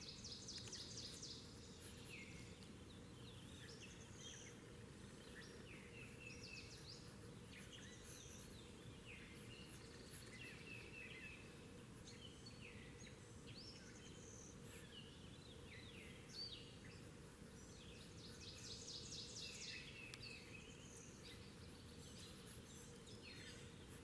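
Faint songbirds singing: repeated short chirps and trills from more than one bird throughout, over a steady low background hiss.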